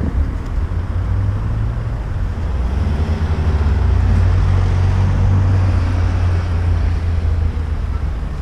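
A car passing close by, its engine and tyre noise swelling to loudest about halfway through and then fading, over a low rumble on the microphone of a moving bicycle.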